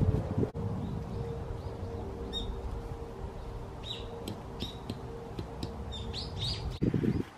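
Small birds chirping in short calls, more often in the second half. Underneath is low rustling from heavy canvas tent fabric being handled on leaf litter, with a louder burst of it near the end.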